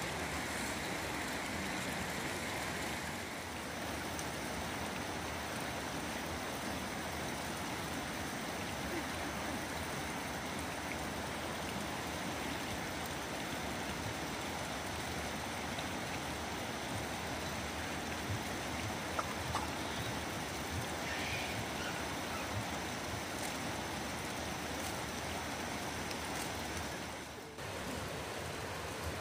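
Steady rushing noise of running water, with a brief dip about three seconds in and a short drop near the end.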